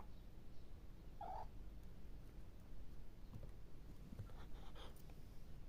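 Maine Coon cat sniffing hard and close, a vacuum-cleaner-like snuffling over a steady low rumble, with a short chirp-like call about a second in.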